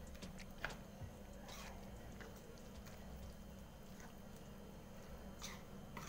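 Steel spoon stirring thick semolina batter with chopped vegetables in a bowl: faint wet squelching with a few light clicks of the spoon against the bowl.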